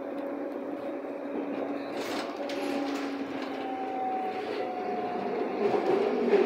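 Berlin U-Bahn HK-series train running, heard from inside the car: a steady motor whine over wheel and track rumble. The rumble grows louder toward the end.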